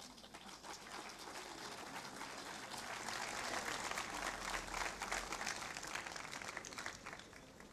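Audience applauding, swelling over the first few seconds and dying away near the end.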